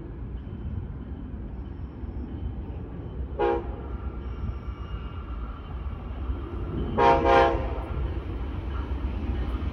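Nathan K5LA five-chime horn on an Amtrak GE P42DC locomotive giving short toots: one about three and a half seconds in, then two quick ones close together about seven seconds in. Under them is a steady low rumble that grows louder near the end.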